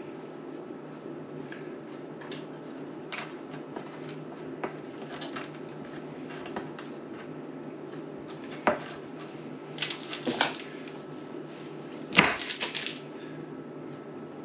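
Scattered light clicks and knocks of a metal muffin tin and a knife being handled on a kitchen counter while cookie dough is pressed into the tin's cups, with the sharpest knock about twelve seconds in. A steady low hum runs underneath.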